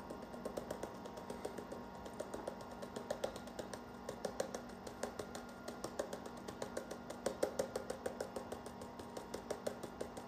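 Borax being shaken out of a cardboard box onto a tacked-out squirrel tail: a dense, irregular ticking of grains and box taps, several a second, going on throughout.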